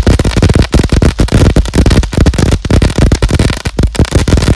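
Brothers 'Extra Zesty' firework fountain burning, its crackling stars going off in a loud, dense, unbroken rattle of rapid pops over the hiss of the spark shower.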